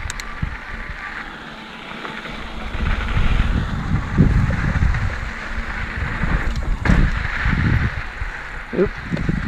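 Mountain bike ridden over a dirt trail, heard from an on-bike or helmet camera: uneven gusts of wind buffeting the microphone over a steady hiss of tyres rolling on dirt, with a few sharp clicks and rattles.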